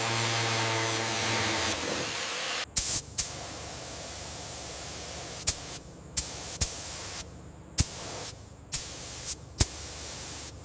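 A small electric motor runs steadily for about two seconds and then stops. A steady spraying hiss follows, broken by about eight sharp knocks at irregular intervals and several sudden drop-outs.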